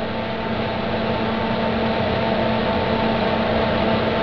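Kitchen range hood vent fan running, a steady rushing noise with a constant hum.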